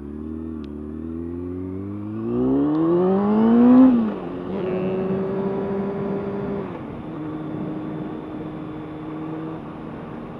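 Honda CBR600F4i inline-four sportbike engine pulling away: the revs climb steadily for about four seconds, then drop sharply at a gear change. The engine then holds a steady pitch, with another step down about seven seconds in.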